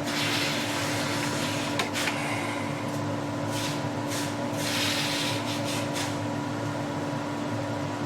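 A 10-inch bandsaw runs with a steady hum. The blade cuts through wood in three spells of hiss, the first about two seconds long, with a couple of sharp clicks near its end.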